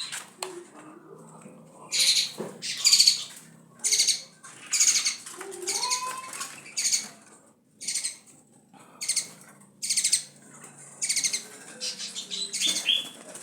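A pet songbird sounding in about a dozen short, harsh, high-pitched bursts, roughly one a second, with a few short pauses between them.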